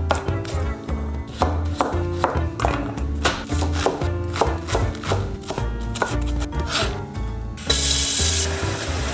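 Chef's knife chopping onion and then greens on a cutting board, repeated sharp strikes a few times a second, over background music with a pulsing bass. Near the end, a brief rush of water from a tap filling a pot.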